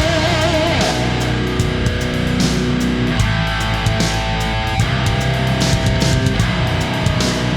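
Background music: heavy metal with electric guitars and a steady drum beat.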